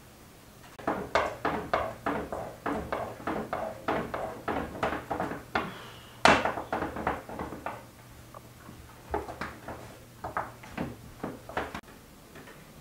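Thin wooden rolling pin rolling dough out on a wooden board, knocking against the board in a quick rhythm of about three knocks a second, with sparser knocks near the end.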